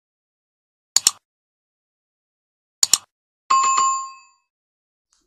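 Two quick double clicks, then a single bell ding that rings out and fades over about a second.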